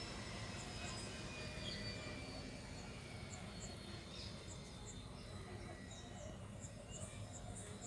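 Helicopter turbine whining on the ground over a low rumble, several high tones sliding slowly down in pitch and fading as the engine spools down. Short high chirps come in from a few seconds in.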